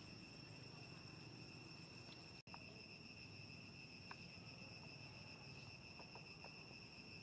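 Steady insect chorus, a shrill drone held on one pitch with a faint low hum beneath. It drops out for an instant about two and a half seconds in.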